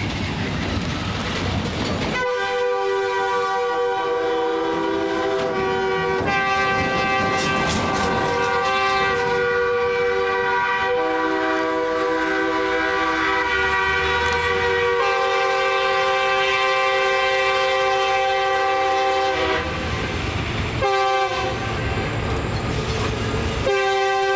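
Truck air horns and a locomotive horn blowing long, overlapping chords that change several times, starting about two seconds in and breaking off briefly near the end, over the rumble of a passing train. One truck's horn may be a genuine Nathan K3LA with all three bells working.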